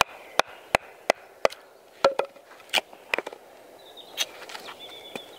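Batoning: a wooden baton knocks repeatedly on the spine of a Jars Irbis bushcraft knife, driving its D2 steel blade down through a log until it splits. Sharp knocks, five in quick succession at first, then more spaced out.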